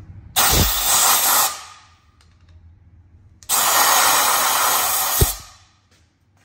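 Compressed-air blowgun blowing out the tailstock quill's brass nut threads after they were chased with a tap, in two hissing blasts; the second is a little longer, about two seconds.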